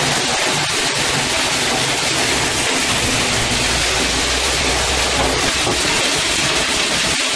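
Loud, steady industrial machine noise, a dense even rush with no clear rhythm, with a low hum joining in from about three to five seconds in.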